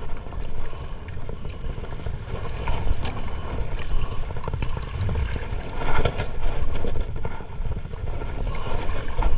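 Wind buffeting the microphone and water moving around a small fishing boat, a steady low rumbling noise broken by a few short knocks.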